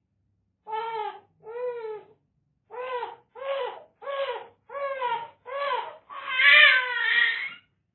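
Infant crying in a run of seven short cries, each rising and falling in pitch, then breaking into one longer, louder wail near the end.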